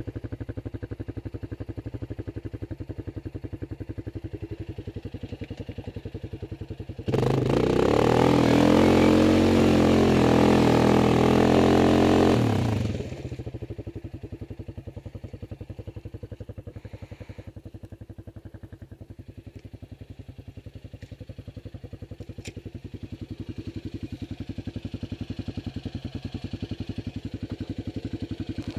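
Off-road vehicle's engine running at idle, revved hard for about six seconds some seven seconds in, rising then holding, then dropping back to idle, while the vehicle is stuck in deep mud.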